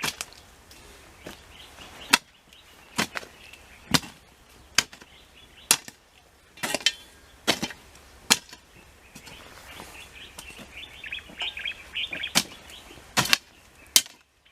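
A digging tool chopping into the ground around a lemon tree's roots: about a dozen sharp strikes at uneven intervals. Birds chirp faintly between the strikes toward the middle.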